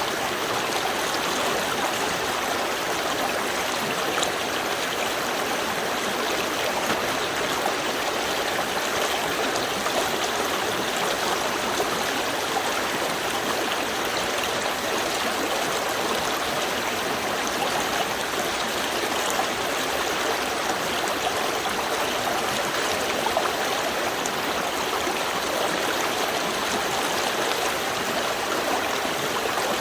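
Small river stream flowing steadily over stones, a continuous even rush of water with light trickling and gurgling.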